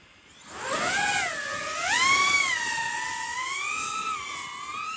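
SpeedyBee Bee35 3.5-inch FPV drone in flight: its brushless motors and guarded propellers whine, coming in about half a second in and rising and falling in pitch with the throttle.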